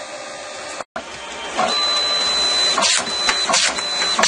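Mitsubishi CP-K60DW dye-sublimation photo printer running. A steady whir gives way, after a brief gap about a second in, to its print mechanism working: a high whine that starts and stops three times, with several clicks.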